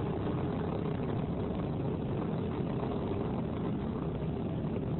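Steady roar from a Titan IV rocket breaking up in flight, with no sharp bang.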